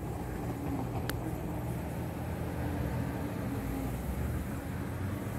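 Steady low rumble of a running vehicle engine, with one short click about a second in.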